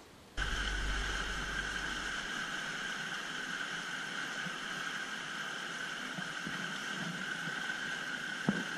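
Small outboard motor running steadily, pushing a small boat along, starting about half a second in. One short, sharp knock near the end.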